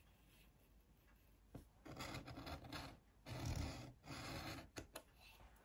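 Pencil drawn along a ruler on paper: three scratchy strokes, each about half a second long, starting about two seconds in, with a few light taps between them.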